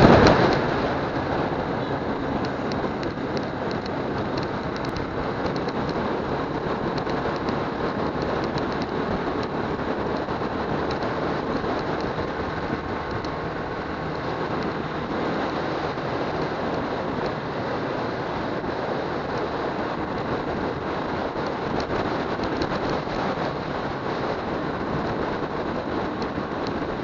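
Steady rush of wind and road noise from riding on a motorcycle at cruising speed, with the engine running underneath.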